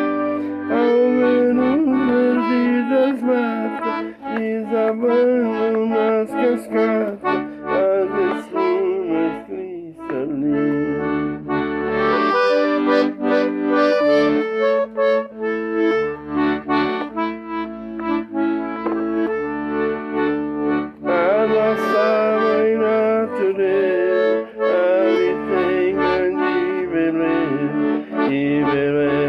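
Instrumental music led by an accordion playing a held melody over rhythmic bass chords.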